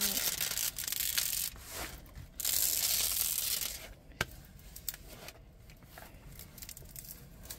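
Plastic wrapping of a diamond-painting kit crinkling and tearing as it is unpacked, in two long stretches, then quieter with a sharp click a little after four seconds in.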